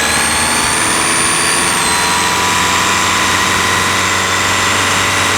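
Audi A3 Cabriolet engine running with a high-pitched squealing whistle over it: several steady whistle tones, the highest dropping slightly about two seconds in. A new auxiliary belt has not cured the squeal, and the owner suspects a boost or air leak in the EGR or turbo pipework.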